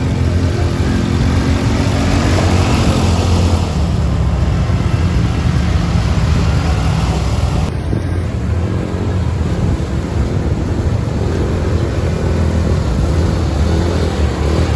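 A motor vehicle's engine running steadily while under way, a constant loud low rumble with noise over it.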